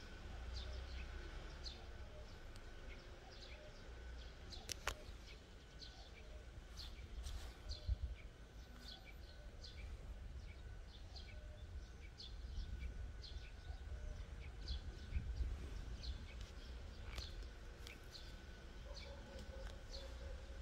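Small birds chirping in the background, short high chirps repeating about twice a second, over a low rumble, with a few sharp clicks around five and seventeen seconds in.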